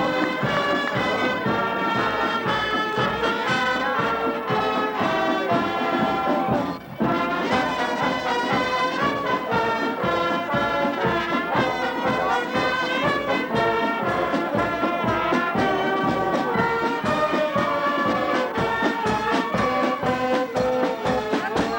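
Marching brass band playing over a steady drum beat, with a short break in the sound about seven seconds in.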